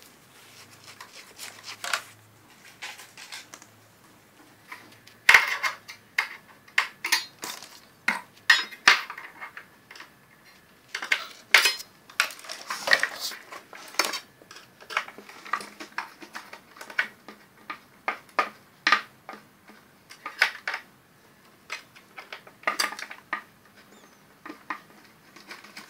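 Irregular clinks, clicks and knocks of small hard objects being handled. They are sparse at first and get busier from about five seconds in, where the loudest knock falls.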